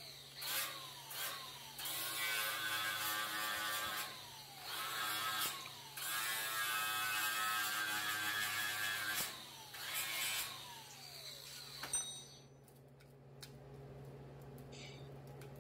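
Cordless angle grinder with an abrasive disc grinding down sheet-metal welds in repeated passes of one to three seconds, knocking off the tops of the weld beads. The motor winds down about eleven seconds in, a click follows, and the last few seconds hold only a low hum.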